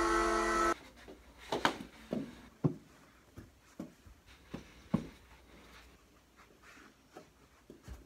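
Hockey goal horn sounding and cutting off suddenly under a second in, then sharp knocks of mini hockey sticks striking the ball and the floor during knee-hockey play, one or two a second.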